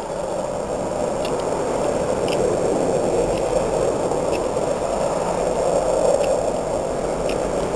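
Steady rushing noise, with a few faint ticks scattered through it.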